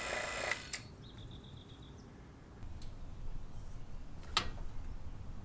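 Refrigerant vacuum pump running, then switched off about half a second in and stopping abruptly, followed by a sharp click. A short high pulsing chirp comes about a second in, and another click later.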